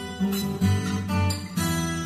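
Karaoke backing-track music: acoustic guitar strumming and picking chords, a new chord struck several times.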